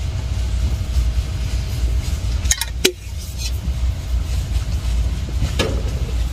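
Handling noise from a hand-held phone camera carried while moving: a steady low rumble, with a few sharp clicks and clinks about two and a half seconds in and another knock near the end.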